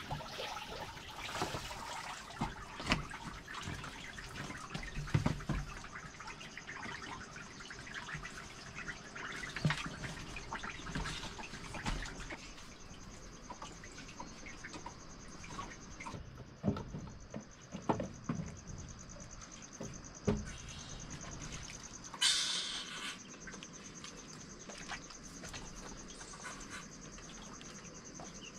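Water splashing and trickling with scattered knocks and handling noises, and a steady high insect chirring that comes in partway through.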